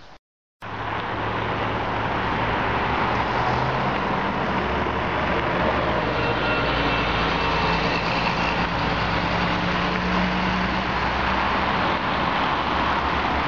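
Road traffic: cars and a city bus driving past close by, a steady mix of engine hum and tyre noise.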